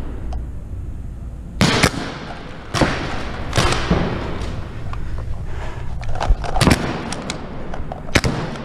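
Pump-action paintball markers firing: about half a dozen sharp single pops at irregular intervals, with two in quick succession a little past the middle.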